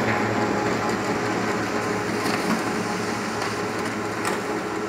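Desktop laser printer running as it prints a page, a steady mechanical run with a faint thin whine.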